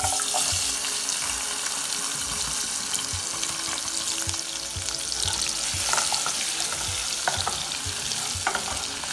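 Chopped onion, carrot and sweet pepper hitting hot cooking oil in a pot and frying, with a steady sizzle that starts suddenly as the vegetables go in. Scattered light clicks come from a spatula stirring them.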